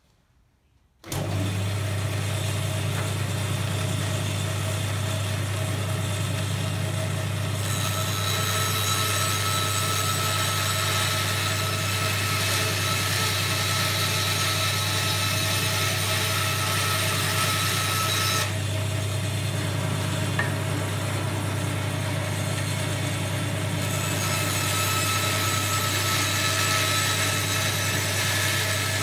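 A bandsaw switches on about a second in and runs with a steady hum. The blade cuts through timber twice, the first cut lasting about ten seconds and the second starting near the end, each adding a hissing rasp over the motor.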